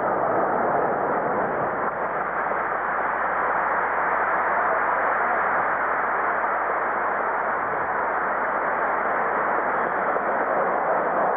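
Steady crowd noise from a large arena audience, an even din that neither builds nor breaks off.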